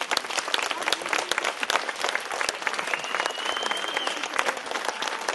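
Audience applauding steadily at the end of a stage number, with a thin high whistle held for about a second around three seconds in.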